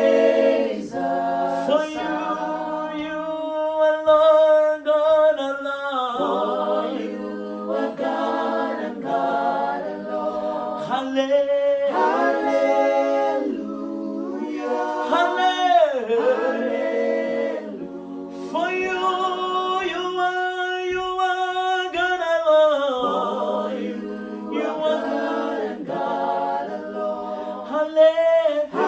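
A cappella gospel singing: several voices sing worship phrases in harmony with no instruments, in sustained notes that shift together from phrase to phrase.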